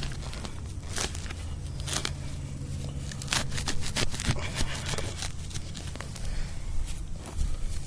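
A hand digging tool cutting and prying into grass turf and soil, making irregular scraping, tearing and crackling strokes as a plug is cut out.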